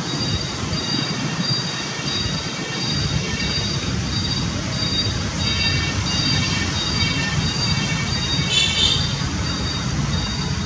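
Steady outdoor road-traffic rumble, with a thin high pulsing chirr running over it and one brief high call a little past halfway.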